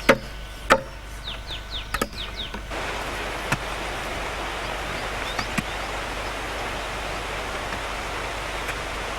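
Chopping blows on wood, three sharp strikes in the first couple of seconds, with a few short bird chirps. About three seconds in, the sound switches abruptly to a steady, even rushing hiss.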